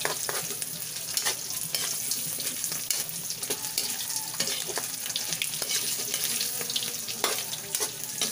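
Tuyo (dried salted fish) frying in shallow oil in a metal wok: a steady sizzle full of sharp crackles, with a metal spatula scraping and knocking against the wok now and then as the fish are turned.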